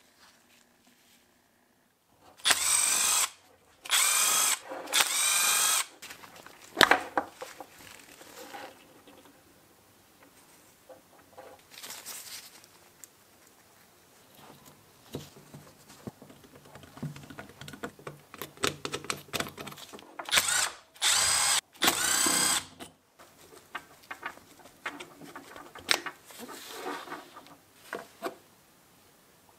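Milwaukee cordless drill-driver whirring in short bursts of about a second each, three close together near the start and two more later, as it backs screws out of the angle grinder's gear housing. Softer clicks and clatter of parts being handled in between.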